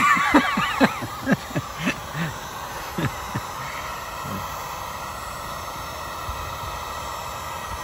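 Wagner heat gun blowing steadily on a fork reflector to soften its adhesive. In the first few seconds there are several short scrapes and clicks from a flat screwdriver prying at the reflector, then only the steady blowing of the heat gun.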